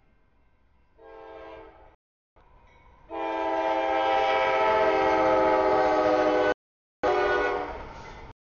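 CSX freight locomotive's air horn sounding for a grade crossing: a short blast, then a long blast of about three seconds, then another blast that fades away, each a chord of several steady notes.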